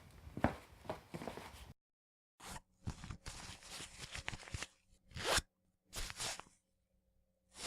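Footsteps at about two a second, cut off abruptly into dead silence, then a run of short, irregular noisy sounds over a faint steady hum.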